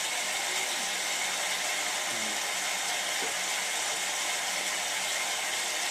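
Hotpoint 9534A washing machine running on its Cotton 85 descaling wash: a steady rushing hiss with no rhythm.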